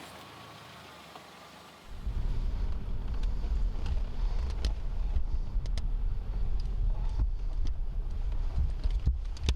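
Low, steady rumble of a car driving, starting about two seconds in, with a few faint clicks over it.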